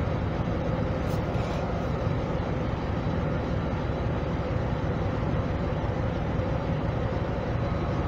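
Steady low background rumble with hiss, even throughout and without distinct events.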